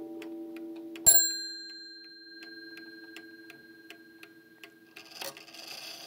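Sessions mantle clock ticking steadily as the coiled gong's last stroke rings on; about a second in, the hammer hits the small half-hour bell once, and it rings out and fades. A brief knock near the end.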